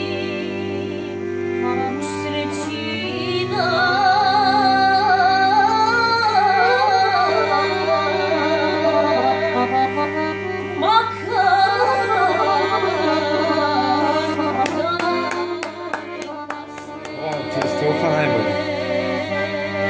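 A boy singing a Bosnian folk song with a wavering vibrato, accompanied by a piano accordion that holds steady chords underneath. The voice comes in a few seconds in; about three-quarters of the way through, a quick run of sharp clicks sounds while the accordion plays on.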